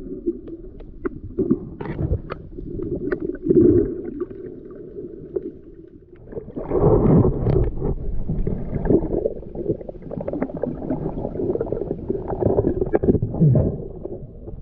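Muffled water sloshing and gurgling around a camera in the sea, with scattered knocks and clicks.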